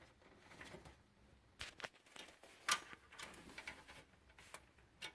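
Faint, scattered clicks and taps of front-panel cables and their plastic connectors knocking against a PC case as they are pulled through to the back, the sharpest tap just under three seconds in.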